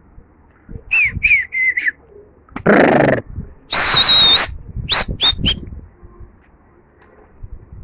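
A man's sharp whistling: four short falling whistles, a loud hissing burst, one long wavering whistle, then three quick short whistles, a pigeon keeper whistling to his pigeons.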